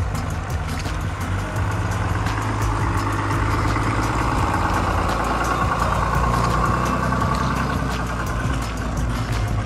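Ram pickup truck's engine running at low speed as the truck with its camper creeps forward, with tyres crunching over the snowy gravel track.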